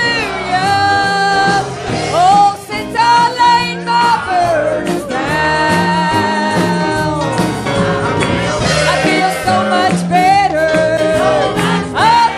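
A worship song played live by a church band: a singer holding long, sliding notes over instrumental backing with a steady beat.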